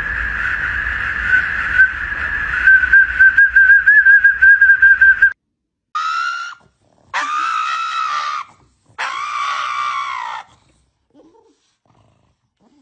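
A dog whining in one long, high, drawn-out note that wavers near the end, then three separate howling cries of about a second each.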